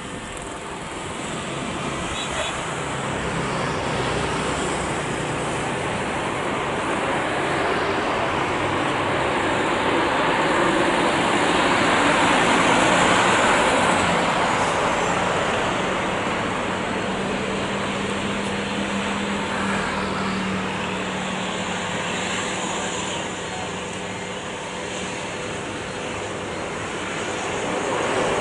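Garuda Indonesia Boeing 737's jet engines on its landing rollout, a continuous rushing roar. It swells to its loudest about halfway through as the jet comes along the runway, then eases off, with a steady low hum for several seconds after the peak.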